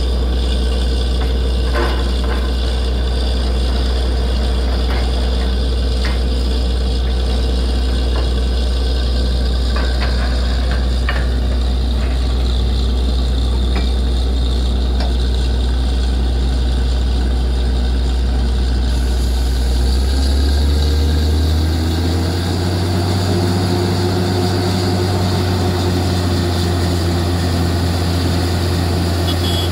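Borewell drilling rig's engine running steadily, with a few light knocks in the first half. About two-thirds of the way through it revs higher and a rushing hiss joins in as water and mud blow up out of the bore hole.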